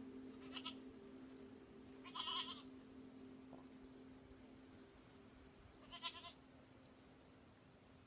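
A domestic goat bleating three times in short, quavering calls, the middle one the loudest. A faint steady low hum lies underneath.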